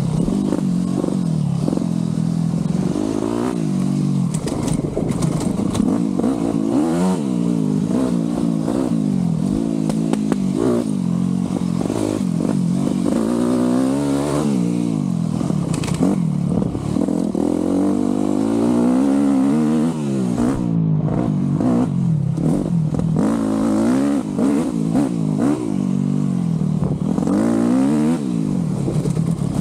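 Yamaha YZ125 single-cylinder two-stroke dirt-bike engine under way, its pitch climbing high as the throttle opens and dropping back, over and over, with short knocks and rattles from the bike on rough ground.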